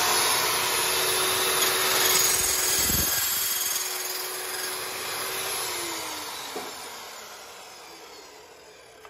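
DeWalt metal-cutting chop saw with a carbide-tipped blade running and cutting through steel closet stock, a loud hissing rasp over a steady motor tone. About 6 seconds in the motor tone drops and the blade spins down, fading away.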